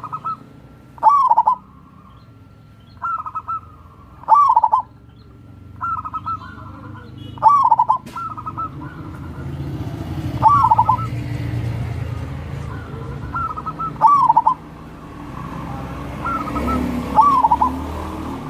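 Zebra dove (perkutut) cooing its song over and over, about once every three seconds: each phrase is a few short clipped notes followed by a louder, drawn-out falling coo. A low rumble runs under the second half.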